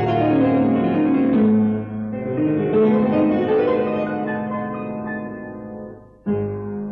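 Solo piano playing a song's introduction: flowing runs and held chords that fade away, then a fresh chord struck about six seconds in.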